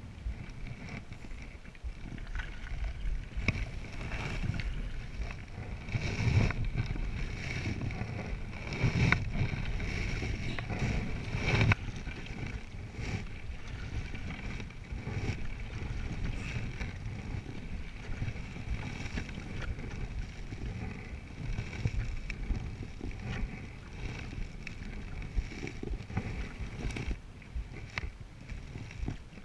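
Paddling a Selway Fisher Wren canoe: a single-blade paddle dips and pulls through the water in repeated strokes, with splashing and water washing along the hull. It is louder for a few seconds in the first half.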